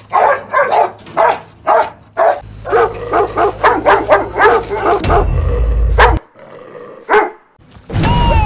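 A dog barking in a quick run, two or three barks a second, for about five seconds. After that there are two spells of loud low rumble, and near the end a tone that falls in pitch.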